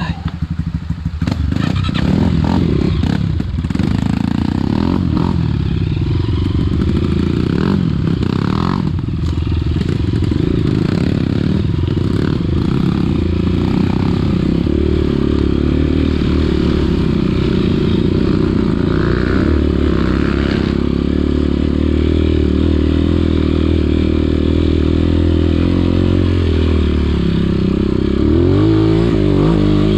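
Trail dirt bike engine running under load as it is ridden, its pitch rising and falling with the throttle, and revving up near the end.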